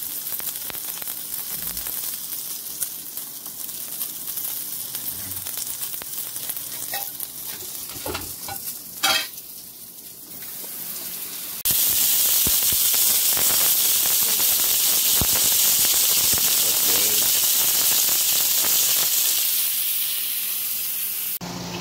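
Ribeye steak sizzling in a cast-iron skillet, a steady hiss. A brief sharp sound comes about nine seconds in, and a few seconds later the sizzle suddenly becomes much louder and stays loud until near the end.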